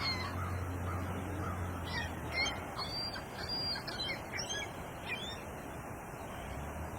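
Birds calling in a run of short chirps and whistles that stop about five seconds in, over a steady background rush and a low hum.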